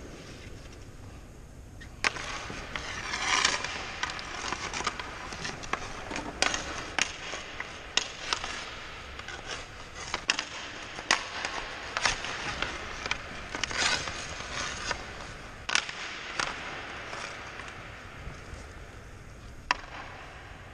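Ice hockey skate blades scraping on the ice, with many irregular sharp clacks of pucks and a stick knocking on the ice, starting about two seconds in.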